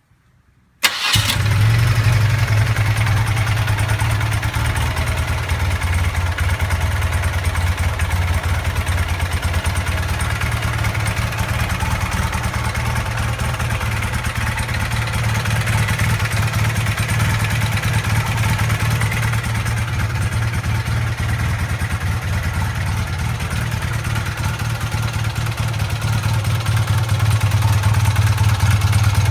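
BMW R100RS air-cooled boxer twin comes in abruptly about a second in and idles with a loud rattling, snapping racket, picking up slightly near the end. The owner suspects worn cam followers.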